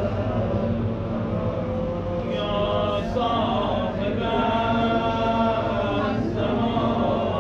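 A group of voices chanting together in a Shia devotional recitation, steady and unbroken.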